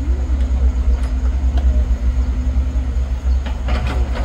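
Diesel engines of excavators and a wheel loader running steadily as they dig, a deep low rumble with a steady hum.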